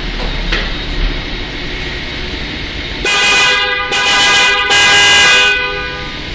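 A newly fitted pair of Seger car horns on a Tofaş, being tested after wiring, sounds in three blasts close together, each under a second long. The blasts start about three seconds in, and the horns work.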